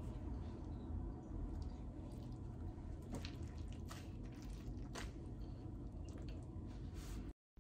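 Hands assembling a sandwich on a plate: a few soft clicks and taps as the top slice of bread is set on and pressed down, over a low steady room hum. The sound cuts off suddenly near the end.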